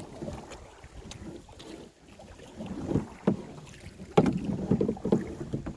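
Canoe paddles dipping and splashing in river water, with irregular knocks, the sharpest about three and four seconds in.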